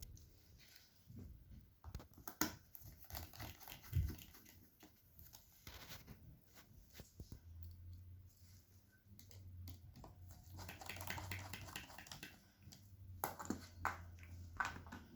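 Light clicks, taps and scrapes of small parts and screws being handled while a laptop's screen assembly is put back together, with a few sharper knocks and a faint low hum through the second half.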